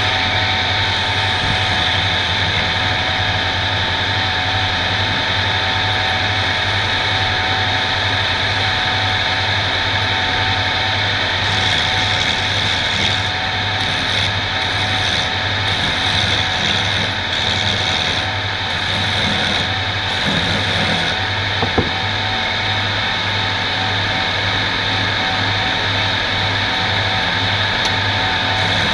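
Electric woodworking machine running steadily with a low hum. From about twelve to twenty-one seconds in, a higher hiss cuts in and out several times as wood is worked, and there is one sharp click a little after that.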